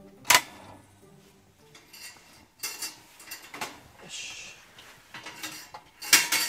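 A loud sharp knock, then scattered clinks and clacks of hard objects being handled, with a short rustle about four seconds in and a quick cluster of knocks near the end.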